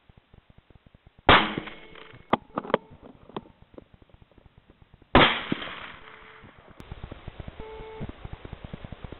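Two .223 rifle shots from a Tikka T3 about four seconds apart, each a sharp crack that dies away over about half a second. A few sharp clicks follow the first shot.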